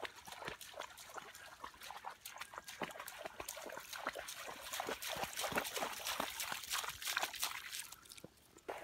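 A large dog running through shallow standing water, its legs splashing in quick, irregular strokes that grow louder as it comes closer, then stopping near the end as it steps out onto dry ground.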